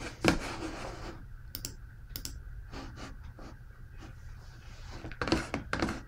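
Scattered light clicks and knocks over a steady low room hum: one sharp click just after the start, a few faint clicks in the middle, and a cluster of louder clicks near the end.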